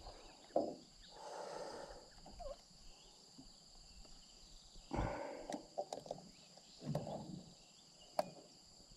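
Scattered knocks, thuds and rustles from handling the landing net in a small boat, over a steady high drone of insects.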